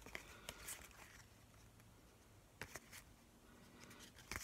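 Near silence with a few faint ticks and slides of paper trading cards being thumbed through by hand, one card moved across the stack at a time. A pair of ticks comes about two and a half seconds in, and more come near the end.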